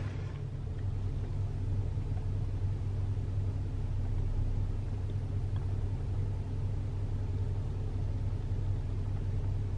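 A Nissan Pro-4X truck's engine running steadily, a low even rumble heard from inside the cab.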